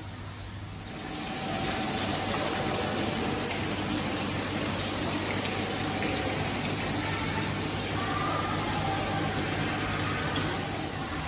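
Steady rush of water from aquarium tank filters and aeration, swelling about a second in and then holding level, with a faint steady hum underneath.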